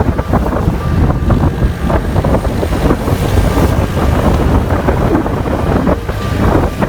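Heavy wind buffeting the microphone over the running noise of a moving road vehicle: a loud, steady rumble with no clear breaks.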